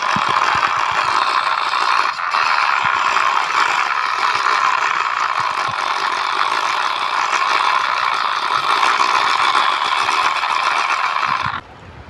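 Loud, steady, high-pitched squealing whine like machine noise. It holds level throughout and cuts off abruptly near the end.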